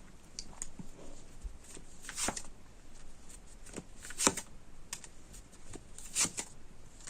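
Tarot cards being handled and laid out: a series of brief, soft papery swishes and taps, the clearest about two, four and six seconds in.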